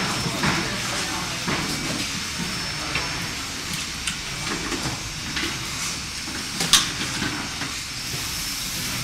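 Steady hiss of a toy-factory assembly floor, with scattered clicks and clatter of small parts and tools and one sharp click about two-thirds of the way through.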